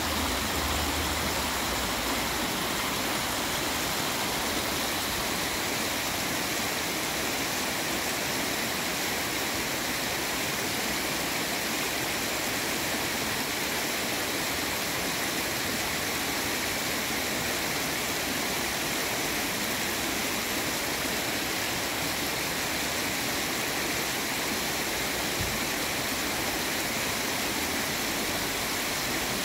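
Shallow stream running over rocks, a steady, unbroken rush of water splashing through a rocky riffle.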